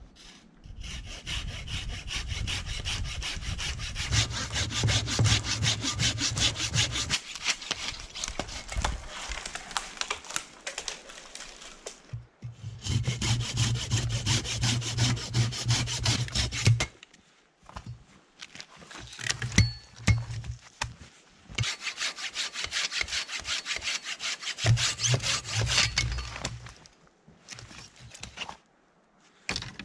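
Hand saw cutting through a log with steady back-and-forth strokes, in three long bouts separated by short pauses.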